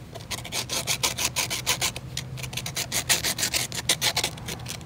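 Plastic dent-puller glue tab rubbed by hand on a sanding disc: a quick run of short rasping strokes with a brief pause a little past the middle. The smooth plastic face is being scuffed so the hot glue will grip it.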